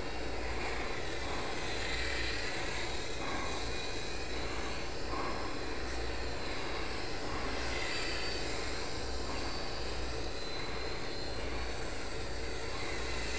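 Battery-powered electric motor and propeller of a FlyZone Playmate micro RC park flyer buzzing in flight, its pitch swelling and falling several times as the plane passes back and forth, over a steady hiss.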